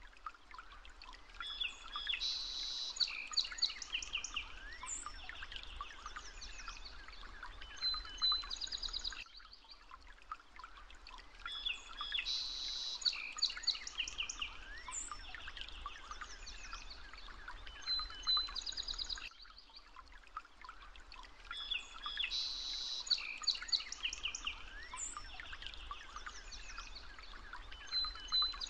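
Several birds chirping and trilling. The same roughly ten-second recording repeats three times in a loop, with a short drop in level between repeats.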